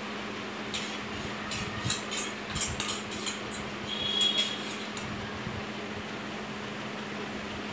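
Metal spoon clinking and scraping against a small stainless-steel bowl: a run of light, irregular clinks over the first five seconds, with a brief ringing note about four seconds in.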